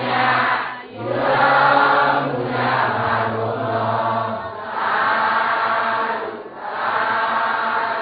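Buddhist chanting by several voices, in repeated phrases of about two seconds with short breaks between them. A low held note runs under the first half and stops about four seconds in.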